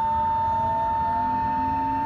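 Tokyo Metro 03 series train's chopper control whining, heard from inside the car as it accelerates. A steady high whine holds one pitch, while fainter lower motor tones slowly rise.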